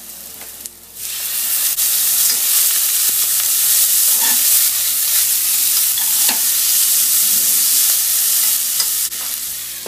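Hot water poured into an oiled frying pan of yakisoba noodles sets off a loud sizzle about a second in. The sizzle runs on steadily as the noodles are loosened and stirred with chopsticks, and eases off near the end.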